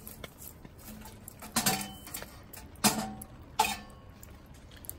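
Metal poker knocking and stirring coals in the firebox of a Winnerwell Woodlander wood stove. There are three sharp knocks with brief metallic ringing: one about a second and a half in, one near three seconds and one just after.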